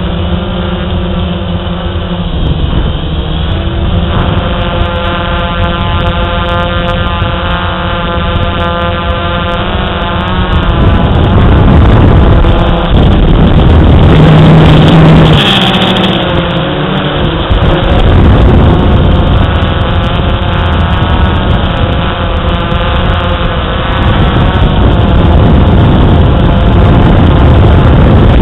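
DJI Phantom quadcopter's electric motors and propellers buzzing close to the microphone: a layered whine of several pitches that drift up and down and cross as the motors change speed, turning rougher and noisier for a few seconds about halfway through.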